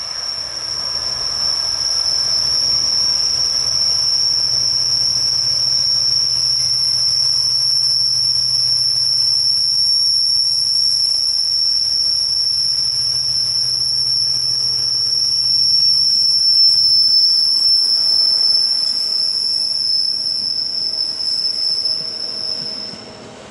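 GBRf Class 66 diesel locomotive with its EMD two-stroke V12 engine running as it approaches and passes, loudest about two-thirds of the way in, followed by its hopper wagons rolling by. A steady high-pitched wheel squeal rings throughout and stops just before the end.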